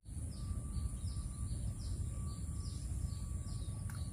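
Rural outdoor ambience: birds chirping, a run of short chirps each falling in pitch, about two to three a second, over a low steady background rumble. A single faint click near the end.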